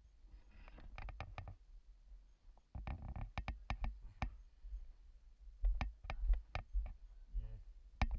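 Irregular sharp clicks and knocks over a low rumble: caving gear and the camera knocking and rubbing as a caver moves through the cave.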